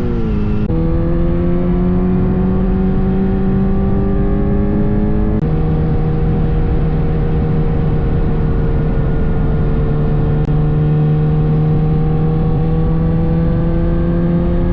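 Kawasaki Z900RS inline-four engine pulling under way. Its note climbs slowly as the bike accelerates, with a gear change right at the start and an upshift about five seconds in, where the pitch drops and then starts climbing again.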